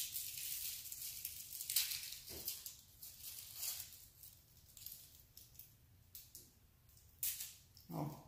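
Dry papery crackling and rustling as a garlic bulb is broken apart and its skins are peeled by hand, in irregular small bursts. A brief low hum of a voice comes near the end.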